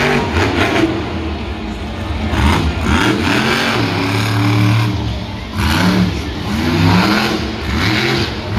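Monster truck's supercharged V8 revving hard again and again, its pitch climbing and falling in quick runs, with a steadier held note around the middle.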